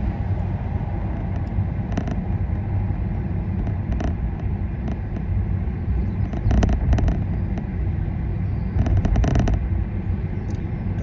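Low, steady road and engine rumble of a moving vehicle heard from inside, broken by short knocks and rattles, a few in quick succession around the middle and again later.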